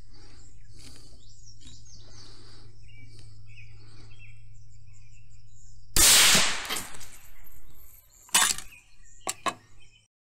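A single rifle shot from a 6 ARC rifle firing a 58-grain V-Max handload, about six seconds in, its report trailing off over a second or so. Two shorter sharp knocks follow near the end. Birds chirp faintly before the shot.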